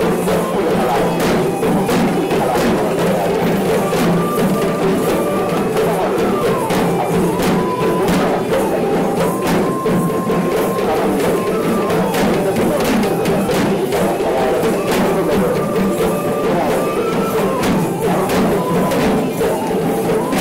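Procession drummers beating traditional Sri Lankan barrel drums in a dense, continuous rhythm. A high melody line, held notes that slide from one pitch to the next, sounds above the drums.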